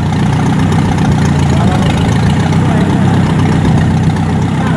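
Carbureted gasoline engine idling steadily while its ignition timing is being checked during a tune-up.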